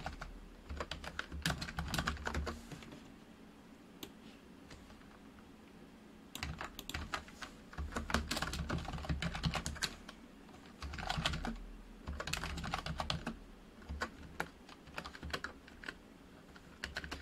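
Computer keyboard being typed on in quick runs of key clicks, broken by short pauses, with a longer pause of a few seconds early on.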